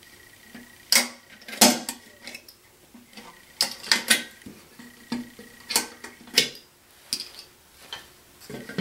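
Metal binder clips being pried off the rim of a black enamel pot and its lid and set down: about a dozen sharp, irregular clicks and clacks of metal on metal.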